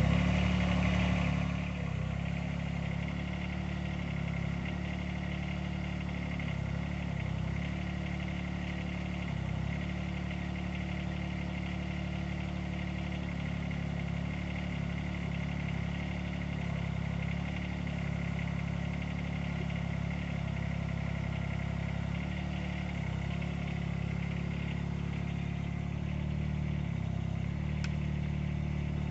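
GroundHog KH20D mini excavator's engine running steadily while the boom and bucket are worked, its note dipping briefly now and then. It is louder for the first second or so.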